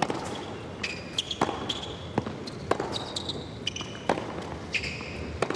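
Tennis rally on an indoor hard court: sharp racket-on-ball hits and ball bounces roughly a second apart, with short high shoe squeaks between them over a low crowd murmur.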